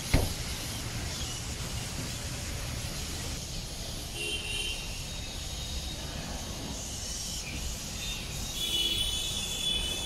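Steady outdoor background noise, a low rumble with hiss, opening with a single thump. Faint high chirps come in twice, about four seconds in and near the end.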